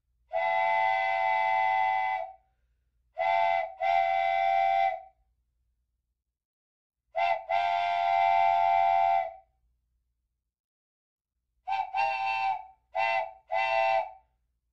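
Steam train whistle blowing a pattern of long and short blasts: a long blast, a short one and a longer one, then a short one and a long one, and a run of short toots near the end.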